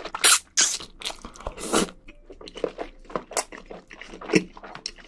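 Close-miked mouth sounds of a person eating wide Chinese glass noodles: irregular wet chewing and slurping with sharp smacks, loudest in the first two seconds.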